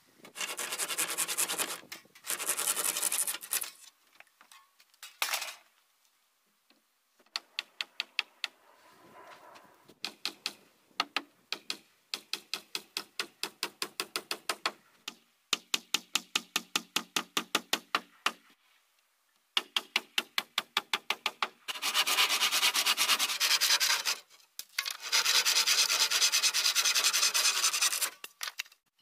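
Hand tools working wooden wall-cladding boards: long scraping strokes of a tool rubbed along the wood near the start and again in two long strokes near the end. In the middle come quick runs of sharp hammer blows, about four or five a second, with a slight ring.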